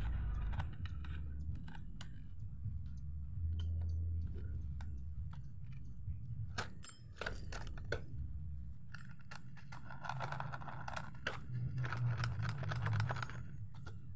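Handling noise from taking apart a pedal scooter: irregular clicks and knocks of metal frame parts, plastic pedals and an Allen key, with a few seconds of scraping about two-thirds of the way through, over a low rumble.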